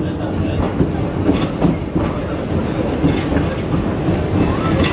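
Subway train running on the rails: a steady rumble with the wheels clacking and knocking over rail joints.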